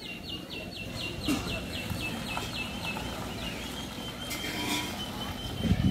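Reversing warning beeper on a Mahindra Bolero SUV: short high beeps about four a second, turning into one continuous tone about three and a half seconds in, over the low sound of the vehicle moving.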